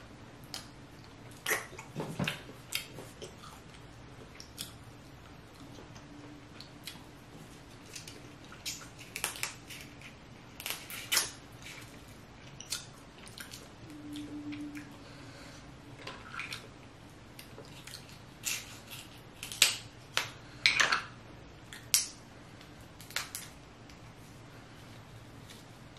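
Close-up eating sounds from boiled seafood: irregular cracks and snaps as cooked snow crab leg and lobster shell is pulled apart by hand, mixed with chewing and wet mouth sounds.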